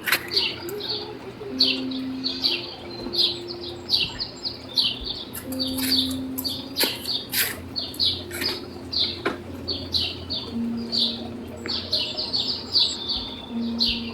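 Birds chirping: a steady run of short, high chirps, about two a second.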